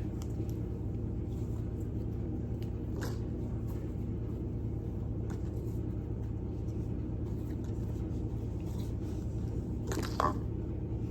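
Steady low hum with a few faint soft clicks.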